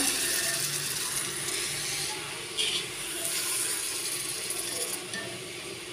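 Sliced onions sizzling and bubbling in hot mustard oil in a clay handi while a metal wire skimmer stirs them, scraping the pot, with a light clink about two and a half seconds in.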